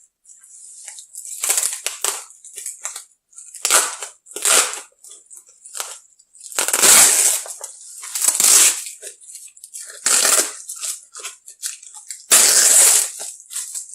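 Parcel packaging being crinkled, rustled and torn open by hand. About half a dozen loud crackling bursts come with quieter rustling in between.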